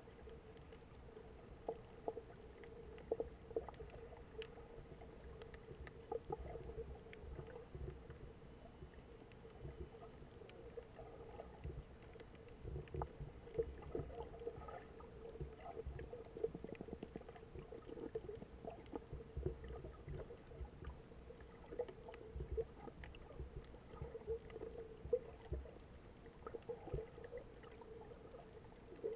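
Muffled underwater sound from a snorkeling camera: low water rumble and movement, with a steady hum and many small scattered clicks.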